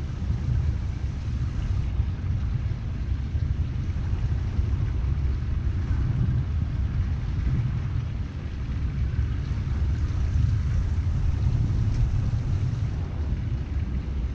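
Steady low rumble of a Quicksilver 555 motorboat under way at slow speed: its outboard engine, with wind on the microphone.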